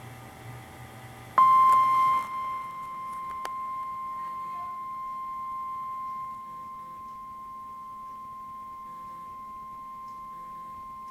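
NOAA Weather Radio 1050 Hz warning alarm tone: a single steady high-pitched beep that starts about a second in and holds for about ten seconds. It is loudest at first, then settles lower. It signals the tornado warning message that follows.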